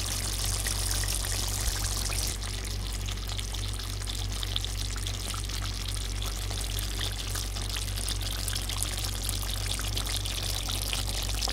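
Thick chicken vindaloo curry simmering in the pan, a steady bubbling with many small pops and spits, over a steady low hum.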